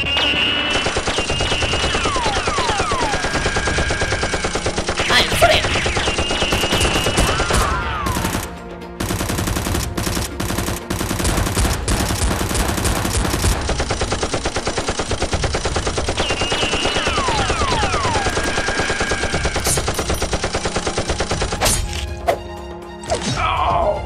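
Rapid automatic gunfire sound effects in long sustained bursts, with falling whizzing tones of passing rounds laid over them several times. The firing drops away briefly about eight seconds in.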